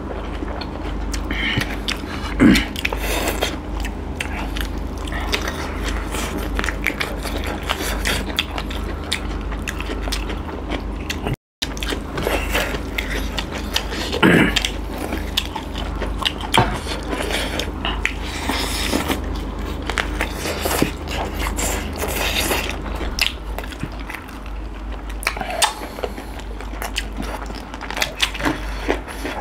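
Two people eating by hand from steel plates: biting and chewing vegetable singju salad, rice and chicken legs, with many small crunching clicks throughout.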